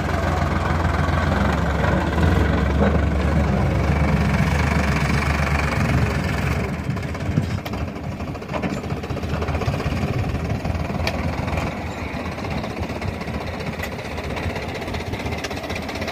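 Sonalika tractor's diesel engine running as it pulls a loaded sand trailer, a steady low rumble that weakens after about six seconds.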